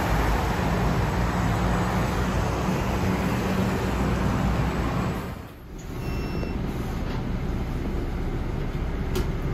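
Linkker LM312 electric bus pulling in at a stop amid road traffic noise; after a cut about halfway, steady road and motor noise heard inside the moving bus's cabin, with a short beep just after the cut.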